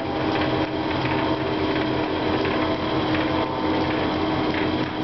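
1947 South Bend Model 9A metalworking lathe running slowly with its power crossfeed engaged: a steady whirr of turning gears with a fine, rapid ticking and a steady hum.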